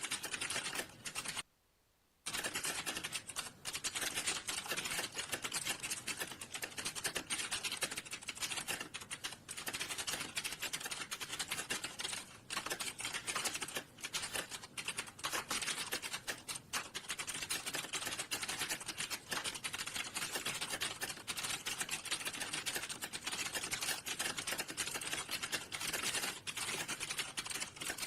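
Fast, continuous typing on a computer keyboard, the keys clicking densely. It breaks off into silence for about half a second shortly after the start.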